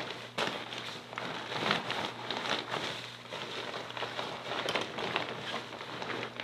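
Rustling and crinkling of a dry bag packed with individually bagged food as it is shoved down into a backpack, with irregular scrapes and small clicks of the fabric throughout. A steady low hum runs underneath.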